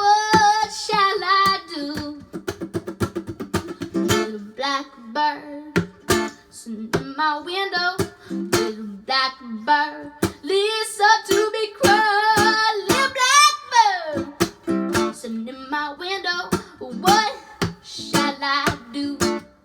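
A young girl singing held, wavering notes over a strummed acoustic string instrument.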